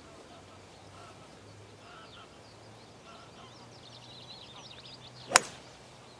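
A golf club strikes a ball off the tee once, a single sharp crack a little over five seconds in. Birds call faintly in the background before it.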